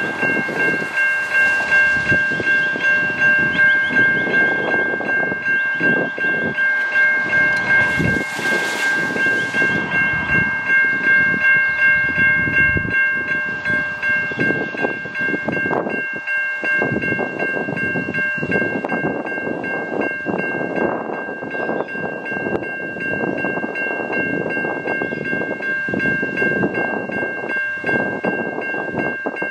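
Level crossing's Safetran Type 3 electronic bells ringing in a fast, steady, repeating tone. This is the warning that the crossing has activated for an approaching train.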